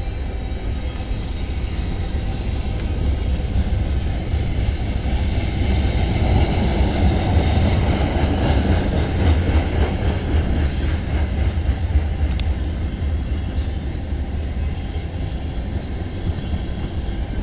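Freight cars of a long CN freight train rolling past on the rails: a steady low rumble of wheels on track, with a single sharp click about twelve seconds in.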